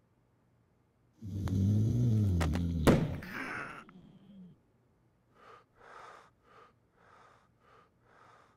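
A person's loud, wavering groan with a few sharp knocks, then six short, hard breaths about half a second apart.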